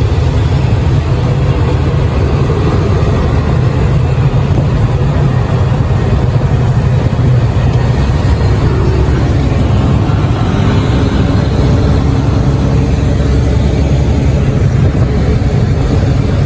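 Steady low drone of a heavy truck's engine, mixed with road noise, heard from inside the cab while cruising at highway speed.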